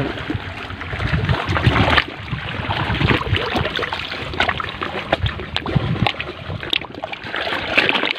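Sea water washing and trickling among shore rocks, with a low wind rumble on the microphone for the first two seconds and scattered small clicks.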